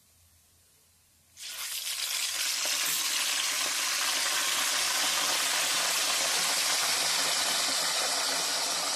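Tapioca chips deep-frying in hot coconut oil, with salt water splashed in: after a near-silent start, a loud steady sizzle sets in suddenly about a second and a half in as the water boils off in the oil.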